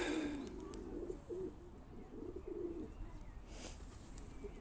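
Several pigeons cooing repeatedly in short, low, rolling phrases, with a brief rustle about three and a half seconds in.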